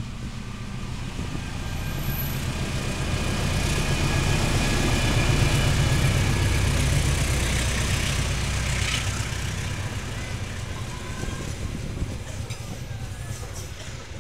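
A CC 206 diesel-electric locomotive hauling a passenger train passes slowly. Its engine rumble builds, is loudest about halfway through, then fades as the coaches roll by.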